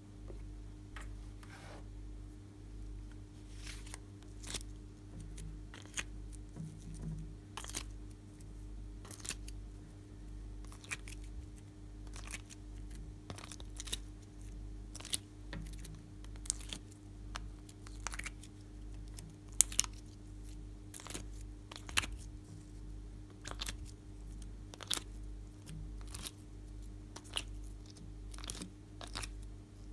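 Sharp, sticky clicks and crackles at an irregular pace as coloured slime is squeezed by hand and pressed onto a dish of glossy glitter slime, over a steady low hum.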